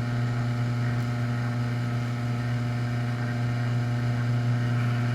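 Garage door opener motor running steadily, a low, even hum with overtones, as the repaired logic board drives it in a direction test.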